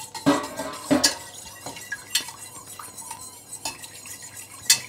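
Wire whisk beating egg yolks and milk in a stainless steel pot, scraping and clinking against the metal, with a few sharper clinks, the loudest near the end.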